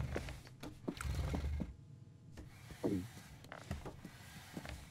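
Cartoon eating sounds: a man chewing and humming low with contentment, with light clicks of cutlery, then a short wavering vocal sound about three seconds in.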